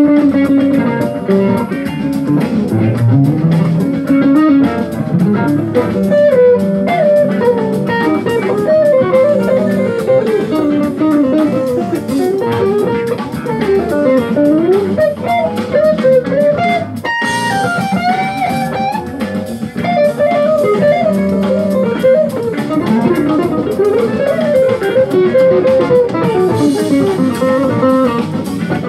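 Strat-style electric guitar playing jazz-funk fusion lines, mostly single notes that climb and fall in quick runs, with a short break about 17 seconds in before a higher phrase.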